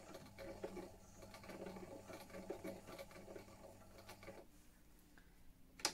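Vintage Singer electric sewing machine stitching slowly, its motor humming under a fast irregular ticking of the needle mechanism; it stops about four and a half seconds in, and a single sharp click follows near the end.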